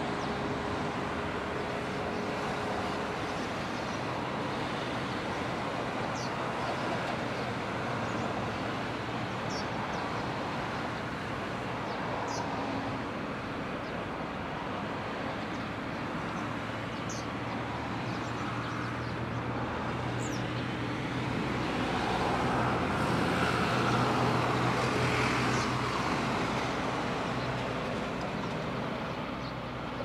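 Steady road traffic going by, with one vehicle passing louder about two-thirds of the way through. Faint short high squeaks come every few seconds.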